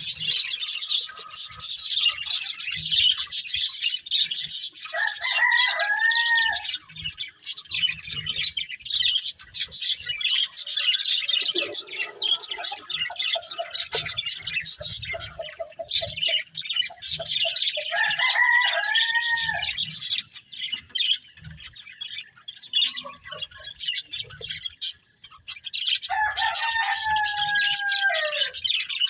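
Budgerigars chirping and chattering nonstop in rapid high twitters. Three times a longer, lower call breaks through, arching and then falling in pitch.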